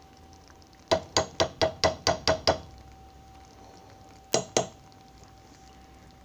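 A kitchen utensil knocking against cookware: eight quick, ringing clinks at about four a second, then two more after a short pause.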